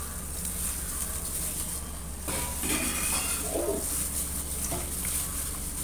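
A gloved hand mixing a thick chili-and-yogurt marinade in a stainless steel bowl, a little louder from about two seconds in, over a steady low background hum.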